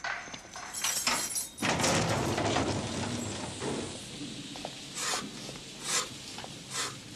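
Heavy prison cell door sliding open with a loud rumbling scrape about a second and a half in, followed by separate sharp knocks roughly a second apart.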